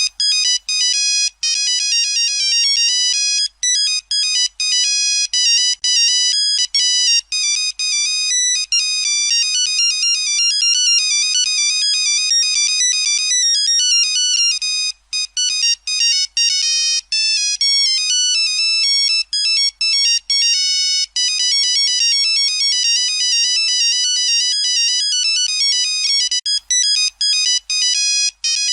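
Nokia mobile phone ringtone: an electronic melody of quick, high-pitched notes, with brief breaks between phrases.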